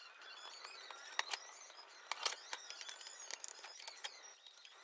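Sharp clicks and taps of hand-assembly: a wooden Z-axis carriage with bearings being fitted onto steel guide rods and handled, the loudest clicks about one and two seconds in. Faint high chirping runs underneath.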